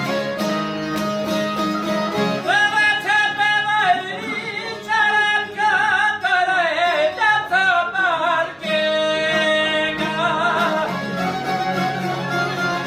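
Albanian folk song: an ornamented sung melody over fiddle and plucked-string accompaniment. The voice comes in about two and a half seconds in and drops out near the end.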